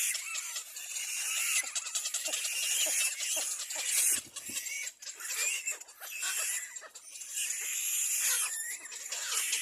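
Little black cormorant nestlings calling with rapid high-pitched squeals, almost without pause, and a brief low thump about four seconds in.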